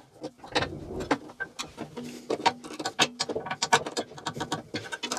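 Irregular small metal clicks and scrapes of a hand tool loosening and sliding the lower blade-guide bearings under a bandsaw table.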